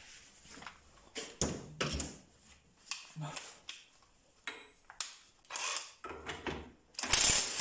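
Clicks and knocks of a socket and tools being handled, then near the end a short, loud burst from a Parkside 18 V cordless 1/2-inch impact wrench. It is hammering loose an M20 bolt done up to about 200 Nm, which comes off easily.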